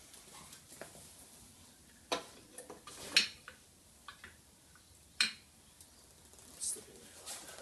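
A few sharp metal clinks and knocks as a metal stand bracket is handled and set against a brake lathe, the loudest about three seconds in.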